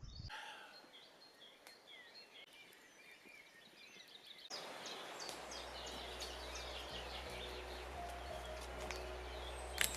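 Birds chirping faintly over outdoor background noise. About halfway through, the background hiss gets louder and a steady low hum comes in. A single sharp click sounds near the end.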